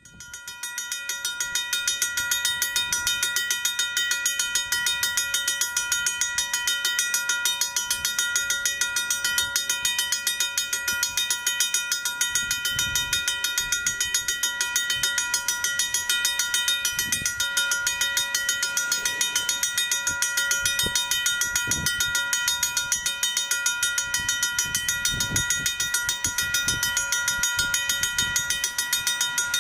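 Railroad grade-crossing warning bell ringing rapidly and steadily, with a few faint low rumbles from the approaching plow train in the second half.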